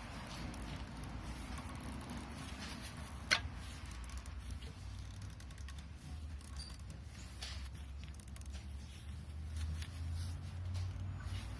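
Faint handling noises of hand tools and parts on an engine during timing belt removal, with one sharp click about three seconds in, over a steady low rumble.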